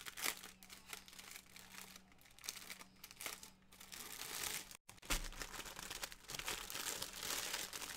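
Clear plastic bag crinkling as hands handle and open it around a bundle of diamond painting drill bags: irregular crackles that grow denser after about five seconds.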